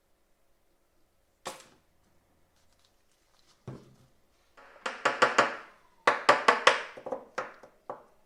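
Hand work on small metal parts: a sharp click, a thump, then two runs of quick clicking and scraping strokes near the end.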